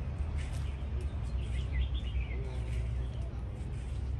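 Birds chirping in short twittering calls, loudest through the middle stretch, over a steady low rumble.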